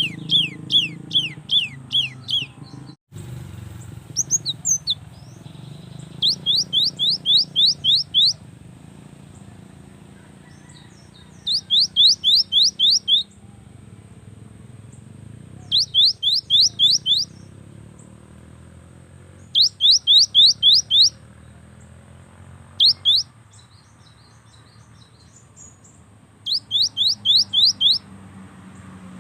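Gelatik batu (cinereous tit) singing: phrases of quick, high, repeated sweeping notes, each phrase lasting a second or two, with pauses of a few seconds between them.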